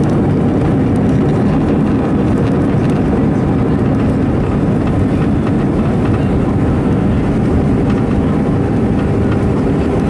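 Steady, loud rumble inside the cabin of an Airbus A320 rolling out on the runway after touchdown, with its CFM56 engines' thrust reversers deployed.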